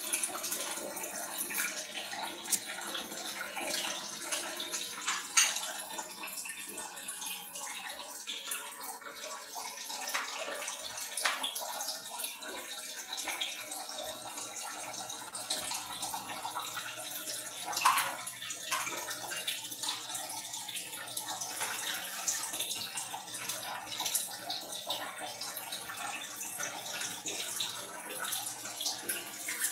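Water splashing at a kitchen sink during washing up, with scattered clinks and knocks of kitchenware against the sink and a plastic cutting board. Two sharper knocks stand out, one about five seconds in and one a little past the middle.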